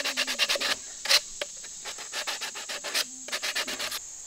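Sandpaper rubbed back and forth on the freshly cut end of a PVC pipe to clean it up, in quick, even scraping strokes. The strokes pause briefly after about a second and stop near the end.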